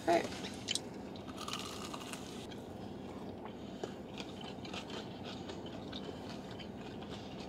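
A person biting into and chewing a Korean corn dog with a crust of fried potato cubes and sugar, giving a few faint crunches.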